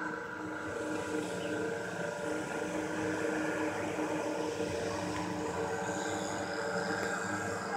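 An engine running steadily: an even drone with a few held tones, unchanging throughout.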